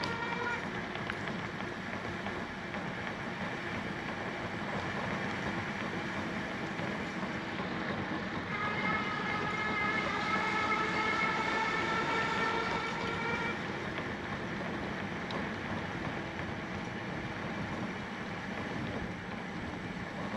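Steady wind and rolling noise from a moving bicycle, with a pitched whine that rises slowly in pitch, briefly near the start and again for about five seconds midway.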